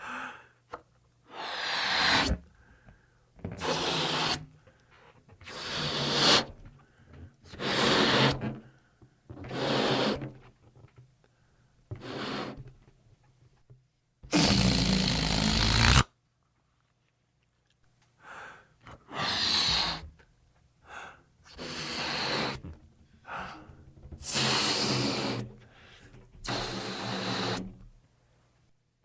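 Party balloon being inflated: a rush of air about every two seconds, each one swelling louder, with one longer blast about halfway through.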